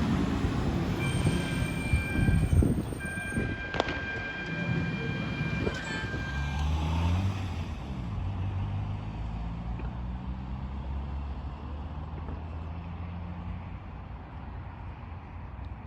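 Fire engine's air horns sounding two steady chord blasts, then the engine revs up as the appliance pulls away and runs on steadily.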